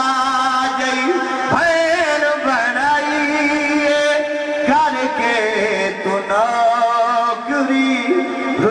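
A man's voice chanting devotional verse in long held notes that bend and turn in pitch, with brief breaks between phrases.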